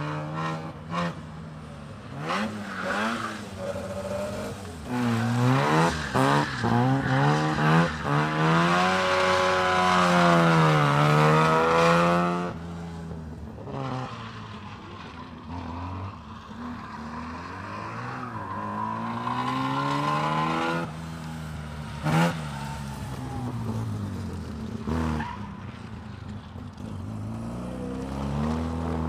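Mazda Familia Rotary Coupe's rotary engine revving hard around a cone course, its pitch climbing and falling with each burst of throttle. It is loudest in the first half, then the throttle is lifted suddenly and the revs go on lower and quieter through the tighter turns, with tyres squealing.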